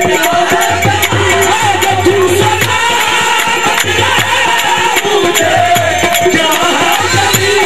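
Live Sufi devotional music for dancing: singing with held, wavering melodic lines over a drum beating a fast, repeating rhythm and jingling, rattling hand percussion.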